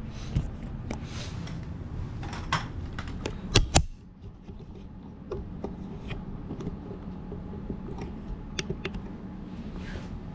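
Handling noise of a camera being set up close to the microphone: scattered clicks, taps and rubbing, loudest as a quick pair of sharp clicks about three and a half seconds in, over a steady low hum.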